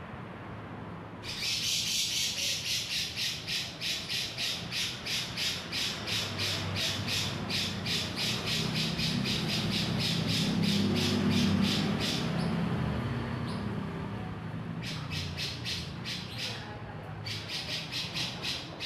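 A cucak jenggot (grey-cheeked bulbul) giving long runs of rapid, harsh squawking calls, about four a second. The calls start about a second in, break off after about 12 s, and come back in two shorter runs near the end. A low rumble runs underneath in the middle part.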